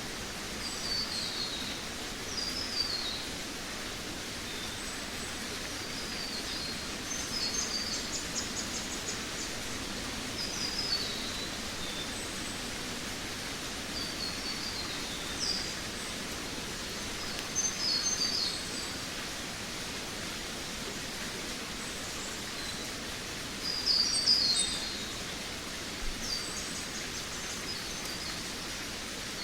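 Forest songbirds singing short, high, descending chirping phrases every couple of seconds over a steady background hiss, with a louder burst of song near the end.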